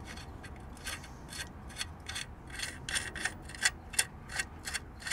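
Hand ratchet clicking in short strokes, run after run of sharp clicks, as the castle nut is tightened onto the lower ball joint stud.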